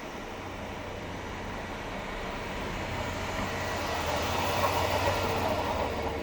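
Zamboni ice resurfacer running with a steady low hum and a rushing mechanical noise that swells, loudest about five seconds in, then eases off a little as if passing close by.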